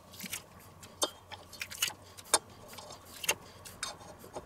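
Metal garlic press clicking and tapping against a stainless steel bowl as garlic cloves are loaded and squeezed: a string of irregular sharp clicks, a few of them louder.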